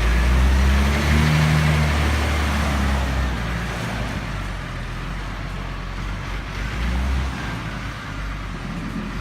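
A heavy vehicle engine running with a steady low hum, loudest in the first few seconds, over a broad machinery noise.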